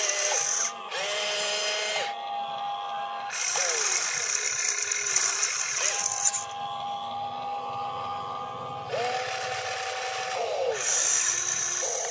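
Motors and gears of a radio-controlled excavator whining as it works its boom and arm and swings its upper body: a string of steady whines, each holding one pitch for one to three seconds, that glide in pitch as each movement starts and stops.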